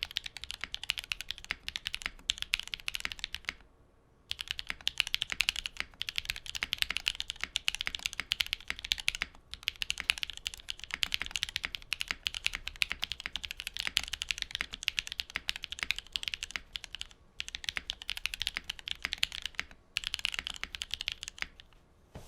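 Typing on a mechanical keyboard with lubed Techno Violet linear switches in a full polycarbonate case with an FR4 plate and doubleshot ABS keycaps: a steady stream of fast keystroke clacks. The runs of typing stop for short pauses about four seconds in and again around nine, seventeen and twenty seconds.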